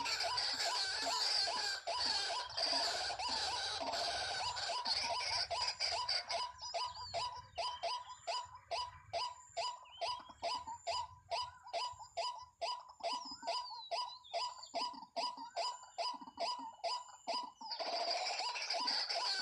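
Waterhens (jal murgi) calling: at first a dense, overlapping stretch of harsh notes, then a fast, even run of short repeated notes about four a second, before the dense calling starts again near the end.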